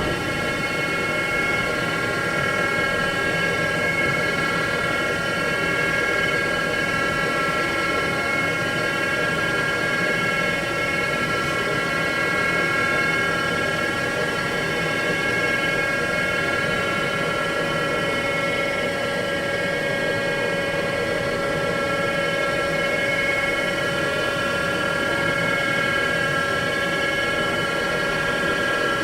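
Haas VF-2D vertical machining center running a program, its high-speed spindle giving a steady whine of several tones over a mechanical hum.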